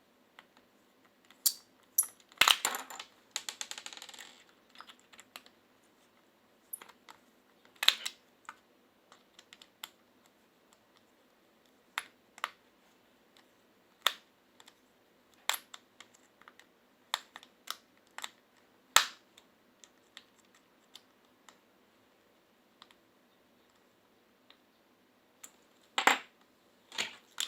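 Scattered sharp clicks and light knocks of small plastic and metal parts and tools being handled while a cordless hair clipper is worked on, with a brief scraping rustle about three seconds in and two louder knocks near the end.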